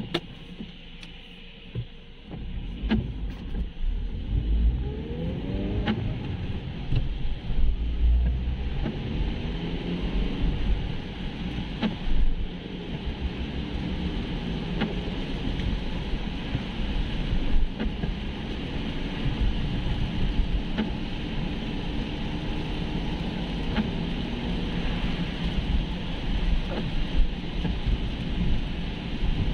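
A car pulling away from a stop in the rain and speeding up, heard from inside the cabin: the engine note rises twice, then settles into a steady rumble with the hiss of tyres on the wet road.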